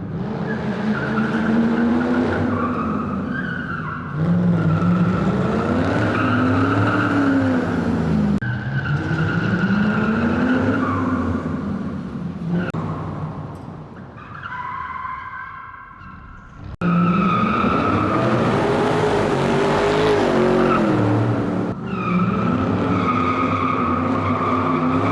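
Race-car engine sound revving up and down again and again, with tyre squeal over it. It comes in several segments that cut off abruptly.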